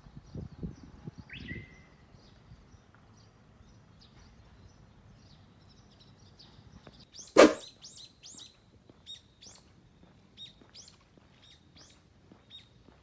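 Songbirds chirping in short, high, repeated notes, with a gliding call about a second in. A single sharp loud knock about seven seconds in, and some low rumbling near the start.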